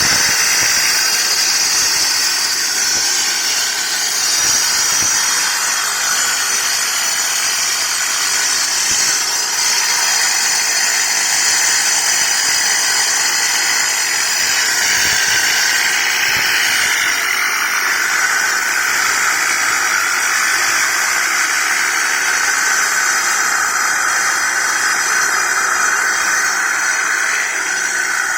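Angle grinder running with a steady high whine and hiss; the tones shift a little past the middle.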